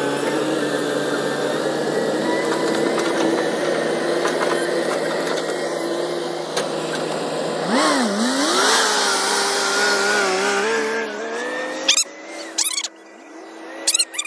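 Diesel engines of a Caterpillar crawler excavator and a dump truck running steadily. About eight seconds in, an engine's pitch dips and then climbs as it revs. Around twelve seconds the engine noise drops away, leaving a few short, sharp chirps near the end.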